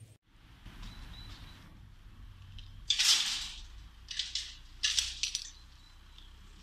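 Metallic clinking and rattling of a shopping trolley being poked and tapped with a wooden stick at its handle and coin lock. One loud clatter comes about three seconds in, then shorter clinks around four and five seconds.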